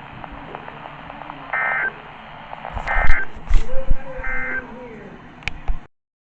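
Three short bursts of screechy EAS digital data tones from a NOAA Weather Radio broadcast, about a second and a half apart, over radio static: the End of Message code that closes the severe thunderstorm warning. A couple of loud thumps come in the middle, and the audio cuts off suddenly near the end.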